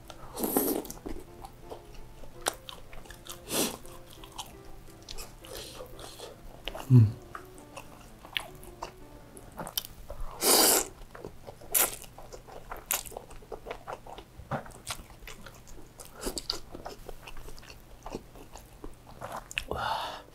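Close-miked eating sounds: biting into a fried dimsum, then chewing with wet, crunchy mouth clicks. A short falling hum comes about seven seconds in, and a long slurp of noodles about ten seconds in.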